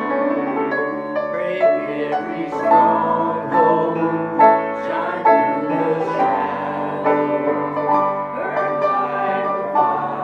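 Piano-led worship music: an instrumental passage between sung lines of a contemporary worship song, sustained chords changing every second or so.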